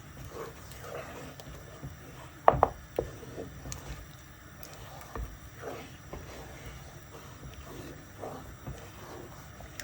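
Spoon stirring a thickening oat swallow in a pot, with scraping and knocks against the pot: a few sharp knocks about two and a half seconds in and softer ones later, over a faint low hum.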